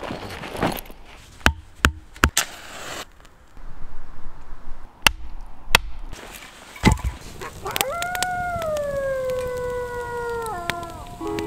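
Several sharp cracks and knocks of firewood being split with a knife on a chopping block. About eight seconds in comes a single long wolf howl that slides down in pitch over about three seconds.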